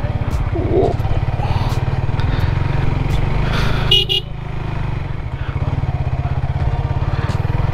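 Motorcycle engine running steadily while the bike is ridden, with a short horn beep about four seconds in.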